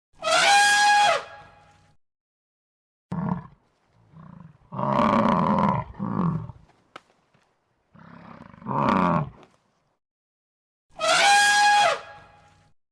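Loud animal calls. The same horn-like call falls in pitch at the start and again near the end, with rougher roaring calls between them.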